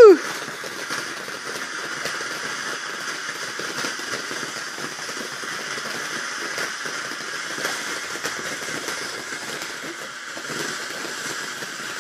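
Ground fountain firework spraying sparks: a steady hiss with scattered fine crackles.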